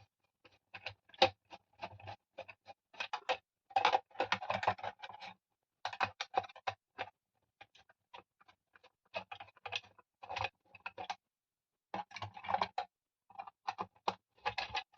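Screwdriver and plastic parts of a mixer grinder clicking, tapping and rattling as its housing is unscrewed and taken apart, in irregular clusters of small clicks with short pauses.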